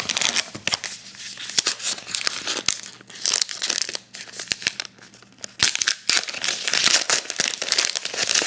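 Foil wrapper of a trading-card pack crinkling and tearing as it is opened, in several crackly bursts.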